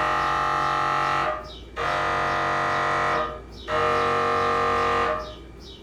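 MRI scanner's gradient coils buzzing during a scan sequence: three loud, steady buzzes, each about a second and a half long, separated by short pauses.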